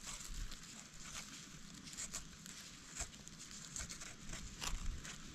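Faint scraping and crackling of gravelly soil and dry grass as gloved hands work a young egg-stage amanita mushroom loose from the ground, with scattered small clicks.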